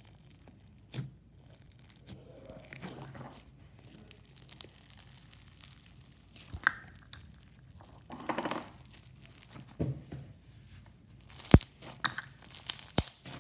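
Bingsu bead slime being stretched, folded and squeezed by hand: its beads crunch and crackle in bursts, with a few sharp pops near the end.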